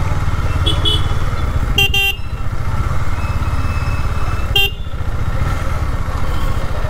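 Motorcycle engine running steadily while riding, a low throbbing rumble, with short horn beeps about a second in, a quick double beep near two seconds and one more about four and a half seconds in.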